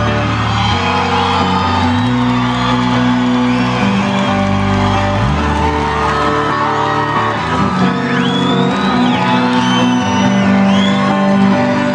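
Rock band music with electric guitar, bass and drums and no words. High sliding notes ride over it in the second half.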